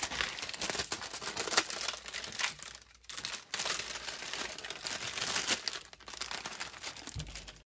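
Clear plastic wrap crinkling and tearing as it is peeled by hand off a new battery, in irregular crackles with a brief lull about three seconds in.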